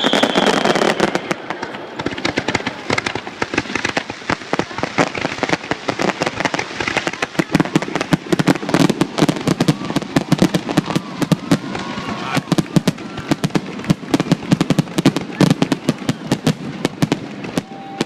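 Fireworks display: a dense, rapid crackle of many small pops running without a break. Right at the start, the tail of a loud burst fades out with a falling whistle.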